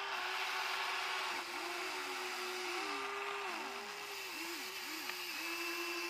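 Whine of the small electric motors in a Huina radio-controlled model excavator as the arm and bucket work. The pitch holds steady, then repeatedly sags and recovers as the motors take load.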